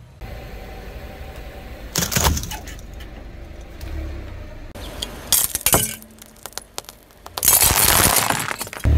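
A car tyre slowly rolling over brittle objects, including plastic syringes, and crushing them. There are a few sharp cracks and snaps, then a longer, loud crunching and crackling near the end.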